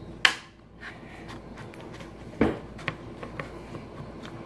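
Slime being worked in the hands, giving off short sharp clicks and pops, two louder ones about a quarter second in and about two and a half seconds in, with fainter ticks between.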